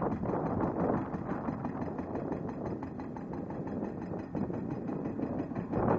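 CMB RB26 hydraulic breaker on a Kato HD 1430 excavator hammering dolomite rock in a rapid, steady rhythm, with the excavator's diesel engine running under load.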